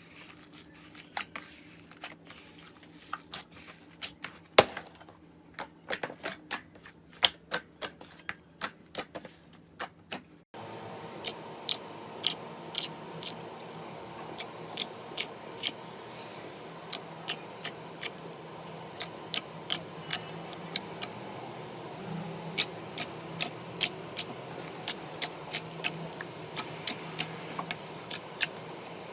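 Slime being pressed and squeezed by hand, giving off irregular sharp clicks and pops as air pockets burst. About ten seconds in the sound changes abruptly to another take with a steady low hum beneath the popping.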